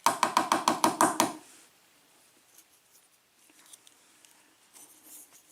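Rapid metallic tapping on the Yale 5-pin lock cylinder, about eight ringing taps a second for just over a second, while the pin springs are being worked out of their chambers. It stops abruptly and is followed by a few faint small clicks.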